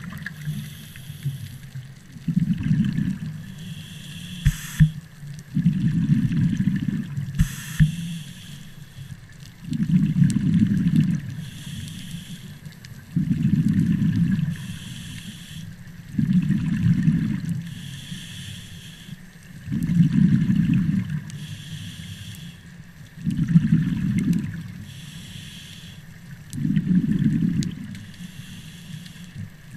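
Scuba diver breathing through a demand regulator underwater: a short hiss on each inhale, then a louder low rumble of exhaled bubbles, repeating about every three and a half seconds. Two brief sharp clicks sound a few seconds apart in the first third.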